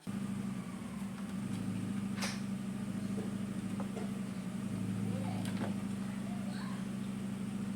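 Steady low electrical hum that switches on suddenly, with a few faint clicks over it.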